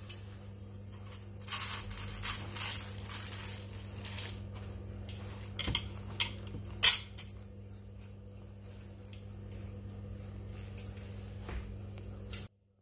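Tissue paper rustling and damp rice grains shifting and clicking against a steel plate as hands spread and pat soaked rice on the paper to dry it. The rustling is strongest in the first few seconds, with a few sharp clicks in the middle, over a steady low hum; the sound cuts off abruptly near the end.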